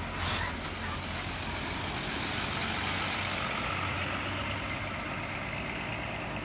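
Large bus engine running with a low hum under a steady rushing noise that swells slightly midway; no horn sounds.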